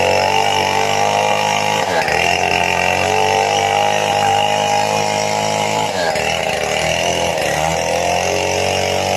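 Two-stroke chainsaw running at high revs while cutting sengon wood. The engine note dips sharply and climbs back about two seconds in and again about six seconds in.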